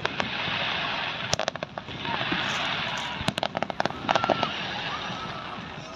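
Fireworks display: quick clusters of sharp bangs from bursting shells, about one, three and four seconds in, over a continuous crackling hiss.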